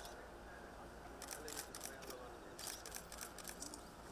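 Still-camera shutters clicking in quick bursts, several runs of rapid clicks.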